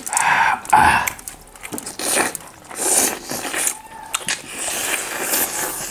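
Close-miked eating sounds: biting and chewing, with a busy run of short clicks and crunches.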